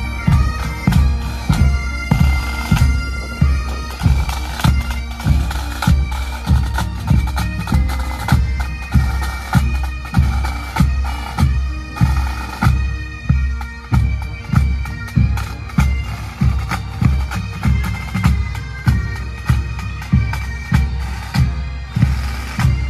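Pipe band playing on the march: Highland bagpipes sounding their drones and melody over drums, with a bass drum beating steadily about one and a half times a second. The pipes grow fainter about halfway through while the drum beat carries on.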